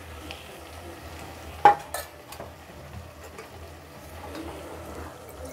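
Spatula moving raw rice around in a steel pot over faint sizzling, with one sharp metal clank about a second and a half in and a few lighter clicks.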